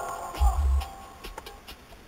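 Bass-heavy song playing through a car audio system's Planet Audio amp and subwoofer, with a deep bass hit about half a second in and a light ticking beat over it.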